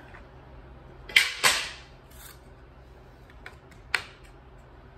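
Sharp wooden knocks from a trim board being handled and pressed against the camper wall. There are two close together about a second in, the second ringing on briefly, then a single knock about four seconds in.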